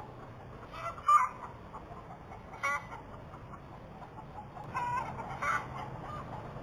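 Chickens giving short squawking calls in three brief bursts, the first and last holding two or three calls each.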